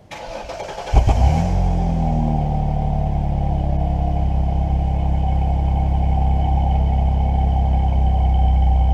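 Car engine cranked by the starter, catching about a second in with a brief flare of revs, then settling into a steady idle. The exhaust is stock, with no turbo whistle fitted yet.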